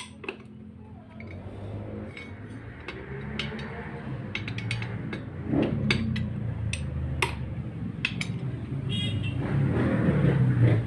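A low vehicle-engine rumble that grows steadily louder, loudest near the end. Scattered sharp metallic clinks of a steel tool against the transmission's gears and case sound over it.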